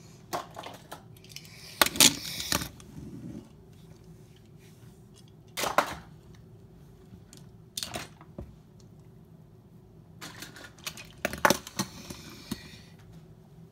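A string of separate sharp knocks and clatters of small hard objects, loudest about two seconds in, with further knocks around six, eight and eleven to twelve seconds. Two of them come with a short rattle.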